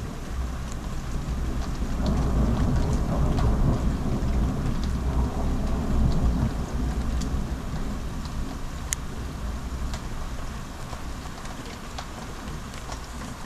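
Rain falling steadily, with drops ticking sharply on a nearby surface. A long low roll of thunder builds about two seconds in and fades away after about six seconds.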